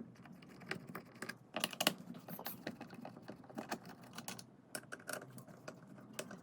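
Irregular small clicks and taps of a Phillips screwdriver and hands working on the plastic housing of a Graco Ultra handheld paint sprayer as its housing screws are taken out.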